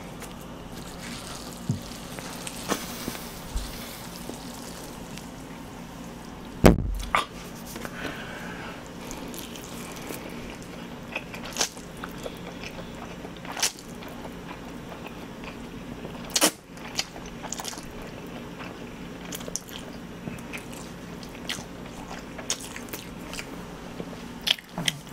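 Close-miked chewing of big mouthfuls of spicy cold noodles (jaengban-guksu, noodles the eater calls tough and chewy), with scattered sharp mouth and chopstick clicks, the loudest a knock about seven seconds in, over a steady low hum.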